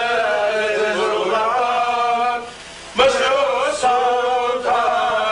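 Male voice singing a slow chant with long held notes that bend in pitch; it breaks off about two and a half seconds in, then starts again.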